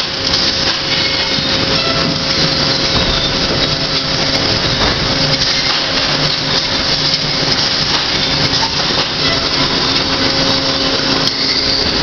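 Sawmill machinery running: a loud, continuous din of saws cutting redwood lumber and conveyors moving boards, over a steady machine hum.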